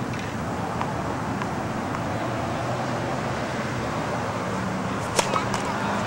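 Steady outdoor hum of distant traffic, broken about five seconds in by the sharp crack of a tennis ball struck by a racket, with a lighter tap just after.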